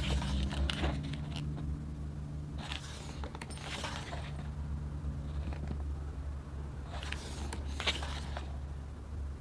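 Scrapes and rustles of items and packaging being handled, coming in short irregular bursts over a steady low hum.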